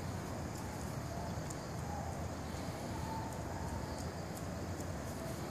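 Steady outdoor background noise, mostly a low rumble, with a couple of faint short tones near the middle.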